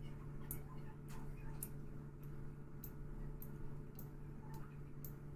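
CV Heljestrand No. 7 straight razor being honed on a Black Shadow finishing stone with slurry: faint, sharp clicks about every half second or so, as the blade is flipped over on its spine at each end of the stroke.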